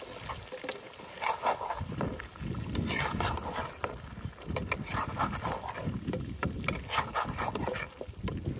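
Ladle stirring chicken karahi in the pan, scraping against the karahi in irregular strokes as black pepper is mixed through.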